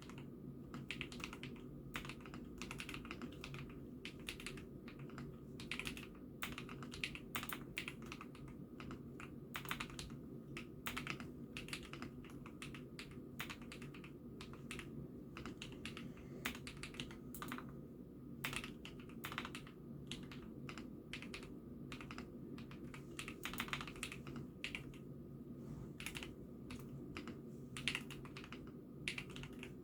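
Typing on an IKKI68 Aurora mechanical keyboard: a continuous, irregular patter of keystroke clacks, picked up by a phone microphone over a steady low hum.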